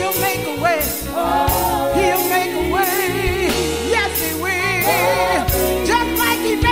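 Gospel song: a lead singer with vibrato over bass and drums keeping a steady beat.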